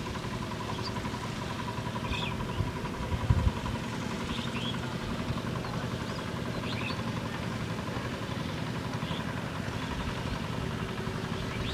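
A small engine running steadily at an even pitch, with a brief low knock about three seconds in.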